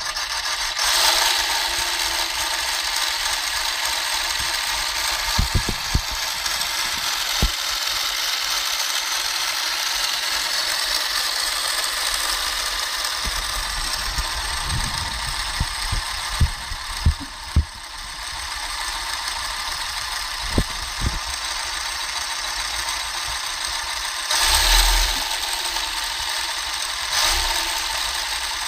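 Motorised 1/6-scale Ford 427 SOHC V8 model engine switched on and running with a steady mechanical rattle, with a few sharp low knocks along the way.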